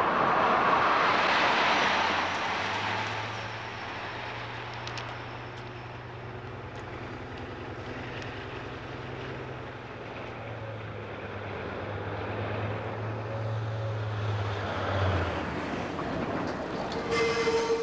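A railway carriage rushes past close by, then a locomotive approaching along the tracks gives a steady low engine drone. Near the end a held, pitched tone comes in.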